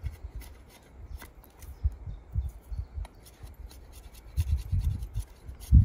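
An ESEE 6 survival knife's blade shaving green split hazel, a quick series of short scraping strokes as the face of the blank is planed flat. A few dull low bumps come through as well, the loudest near the end.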